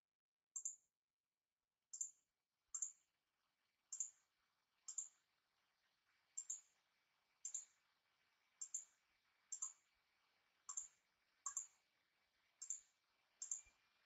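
Computer mouse clicking, faint: about a dozen short press-and-release clicks, roughly one a second.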